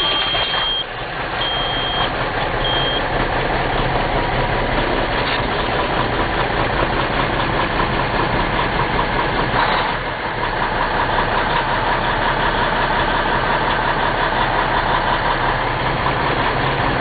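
Caterpillar C-15 inline-six diesel idling steadily just after being started, heard from inside the truck's cab. In the first few seconds a high warning beep sounds three times, each beep shorter than the last.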